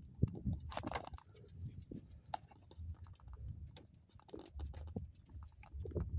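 A quick, irregular run of light clicks and taps over a faint low steady hum.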